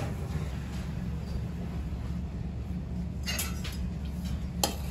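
Steady low hum of workshop machinery, with a brief scrape of hands working loose foundry sand in a molding flask a little past three seconds and a sharp click near the end.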